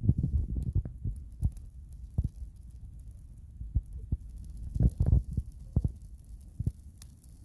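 Gasoline-soaked doll burning in large flames: an uneven low rumbling flutter broken by sharp thumps, heaviest at the start and again about five seconds in.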